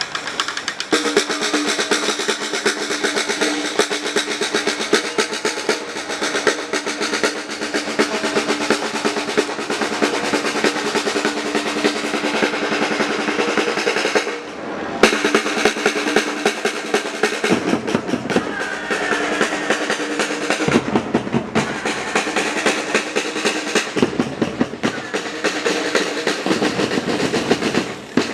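Batucada percussion ensemble playing: snare drums in a fast, dense roll-like pattern. About halfway through the drumming drops out for a moment, then comes back in with deeper bass-drum hits under the snares.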